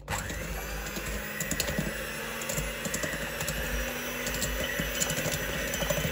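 Polaris electric hand mixer switching on and running steadily, its beaters whisking eggs and sugar in a stainless steel bowl, with many small clicks as the beaters knock against the bowl.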